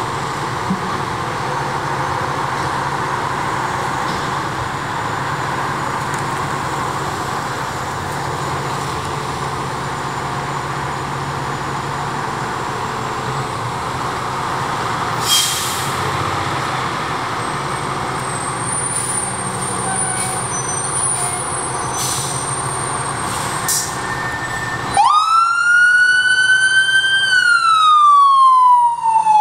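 Fire trucks' diesel engines idling steadily in their bays, then about 25 seconds in a fire engine's electronic siren starts up much louder, a slow wail rising, holding and falling, and beginning to rise again at the very end as the truck pulls out to respond.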